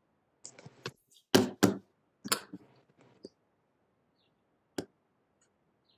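A handful of sharp knocks and clicks: two loud knocks close together about a second and a half in, another just past two seconds, then a single click near the end, from art supplies being handled on a tabletop.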